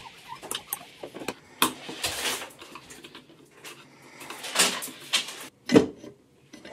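Bathroom cabinet shelf being taken out and reset higher: a scattered run of knocks, clicks and scraping as it is shifted in the cabinet, with a sharper knock near the end.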